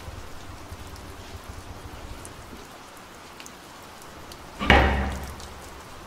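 Steady rain falling outside, then about three-quarters of the way through a single loud clunk from the wooden front door as it is unbolted.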